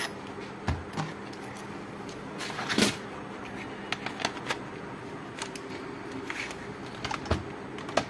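Lenovo ThinkPad T580 laptop handled on a workbench: a few knocks and clicks of its plastic body, with a louder scrape a little under three seconds in as it is shut and turned over.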